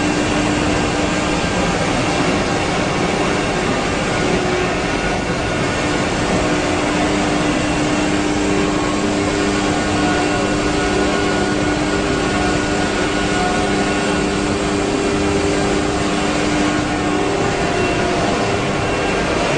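Xintech CNC wood router running, its spindle and dust extraction giving a steady machine whine over a rushing noise, with a hum that drops away about seventeen seconds in.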